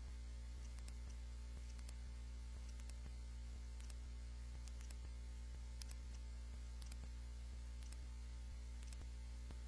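Steady low electrical hum, with scattered soft clicks from a computer mouse scrolling, often in quick pairs.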